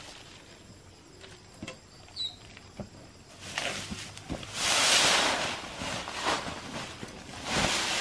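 Salt pouring out of a sack onto a plastic tarp: a rushing hiss that builds from about three and a half seconds in and fades after six. Before it come a few light taps and scrapes.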